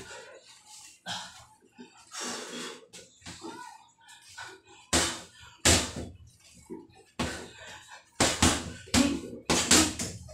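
Boxing gloves striking a hanging heavy bag: a couple of punches about halfway in, then a quick flurry of about six near the end.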